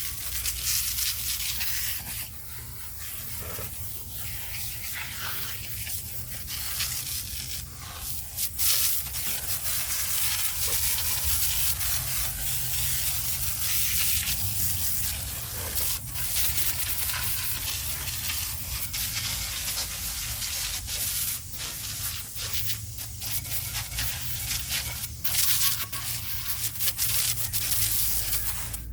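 Scrubbing brush worked by hand over old concrete, a dense hiss of irregular strokes that keeps on.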